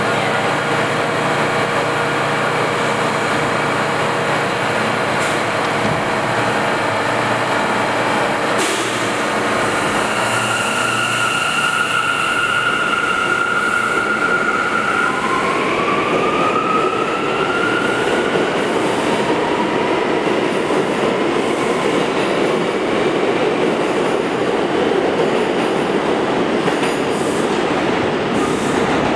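R179 subway train humming while it stands with its doors open, with a single knock about nine seconds in. It then pulls out: the motors give a steady whine that climbs in pitch as the train accelerates, and the rumble of the wheels on the rails grows as it leaves the station.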